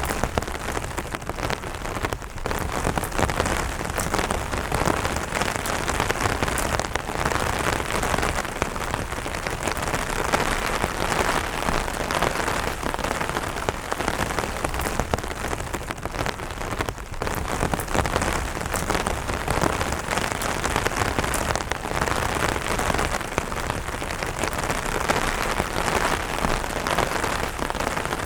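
Steady rain pattering on an umbrella canopy, a dense patter of drops with many sharp individual taps.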